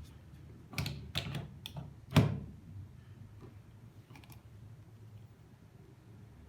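A handful of sharp plastic clicks and knocks from a power bank charger and its plug adapter being handled, the loudest about two seconds in, followed by a couple of faint clicks a little later.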